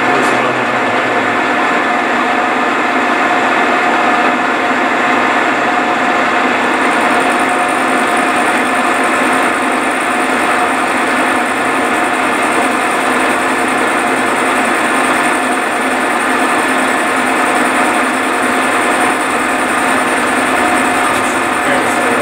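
Milling machine running steadily under load, feeding a cutter slowly across a cylinder casting. A thin high-pitched whine joins the machine noise about seven seconds in.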